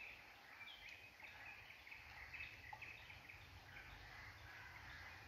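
Near silence, with faint, short bird chirps repeating in the background.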